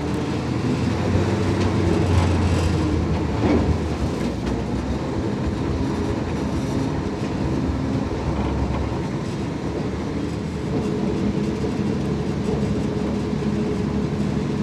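Dodge M37 truck's flathead six-cylinder engine running as the truck is driven over dirt, a steady low drone whose pitch shifts a little now and then.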